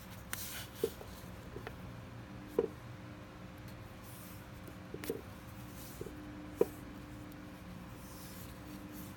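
Light handling noise of a small steel fishing hook and fingers on paper: a few sharp, separate clicks and taps with faint rustles, over a steady low hum.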